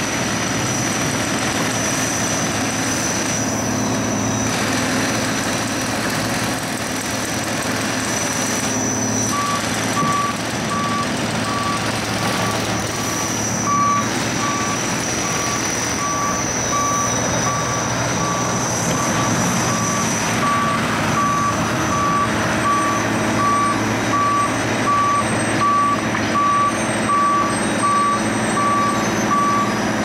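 Diesel engine of a Case skid steer loader running hard on a road-milling job, with other heavy machinery running alongside and a high steady whine over the first part. About ten seconds in, a reversing alarm starts beeping about once a second and keeps on.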